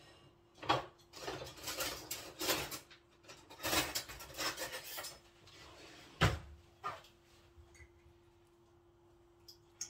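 Kitchen clatter of dishes and utensils being handled: a run of knocks and rattles, then a sharper knock about six seconds in. After it comes a steady faint hum.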